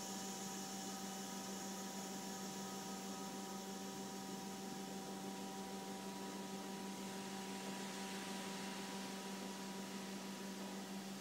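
Steady electrical hum with a few constant tones under an even hiss, unchanging throughout; no cannon shot or impact.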